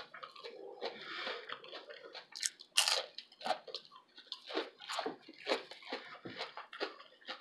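Close-miked chewing of crispy fried hash brown: irregular crisp crunches, a few a second, over soft wet chewing.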